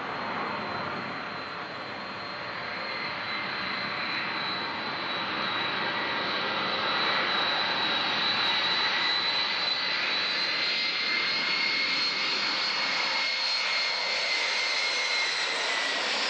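Boeing 747-300 on final approach, its four turbofan engines giving a steady high whine over a broad rushing roar that grows louder through the first half as the jet comes in low, then holds.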